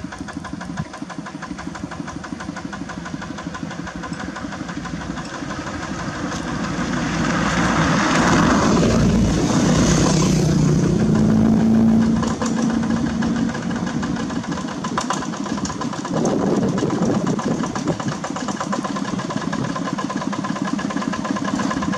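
Single-cylinder diesel engines of two-wheel walking tractors running with a steady chug. About a third of the way in, the engines get louder and one revs up and holds for a few seconds, then eases back down.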